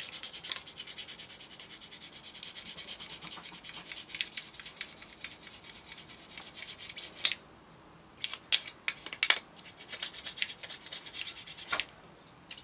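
Abrasive side of a polishing stick rubbed rapidly back and forth over the plastic wing root of a model aircraft kit, flattening off dried glue marks. The strokes stop about seven seconds in, and a few light clicks and taps follow.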